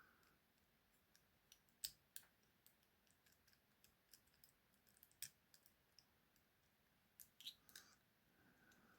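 Faint, irregular metallic clicks and ticks of two bent wire picks working inside a British two-lever padlock, probing the levers in its keyway.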